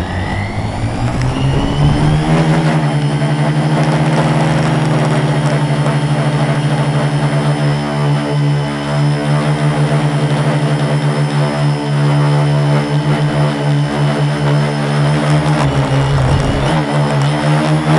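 Quadcopter's four MultiStar 2212 920kv brushless motors spin their 10x4.5 props up for takeoff, their whine rising over the first two or three seconds. They then hold a steady buzzing hover that swells and fades slightly, with a brief dip and rise in pitch near the end as the throttle changes.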